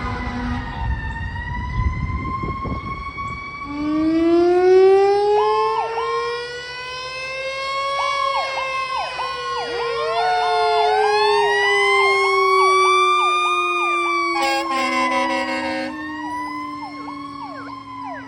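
Fire engine's mechanical Federal Q siren winding up over about four seconds and then coasting slowly down in pitch. An electronic siren wails and yelps over it, and the air horn gives one blast of about a second and a half near the 15-second mark. A low rumble from the truck comes at the start.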